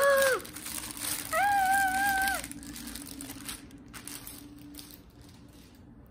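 Clear plastic packaging crinkling as it is handled and pulled off a planner cover, fading out after about three and a half seconds. Over it, a woman makes two short wordless vocal sounds: a brief falling one at the start and a higher held one of about a second, starting about a second and a half in.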